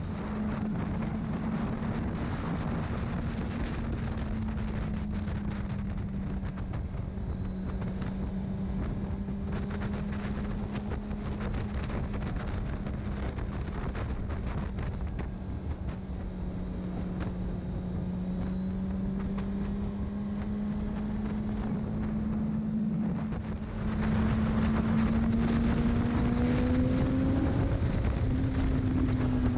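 Honda CBR600RR's inline-four engine running at steady cruising revs, with wind noise on the microphone. About three quarters of the way through it gets louder and the revs climb, then they drop back with an upshift just before the end.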